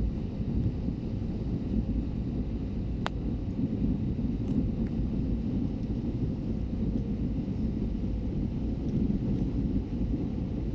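Steady low rumble of an airliner landing, with a faint steady hum over it and one sharp click about three seconds in.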